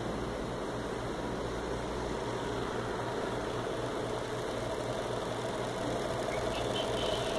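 Experimental four-phase induction motor running on the mains supply: a steady electrical hum with a whir over it, growing slightly louder near the end.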